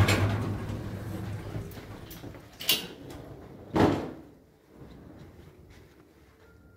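Hotel elevator arriving and its sliding doors opening: a thud with a low hum that fades over the first second or so, then two short knocks about three and four seconds in.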